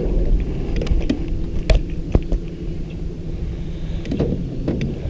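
A few sharp clicks and knocks from handling in a small fishing boat, over a steady low rumble.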